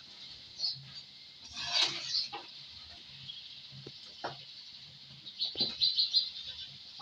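Besan fritters sizzling and crackling in hot oil in an iron kadai, with a few short scrapes of the slotted metal spoon against the pan as they are turned.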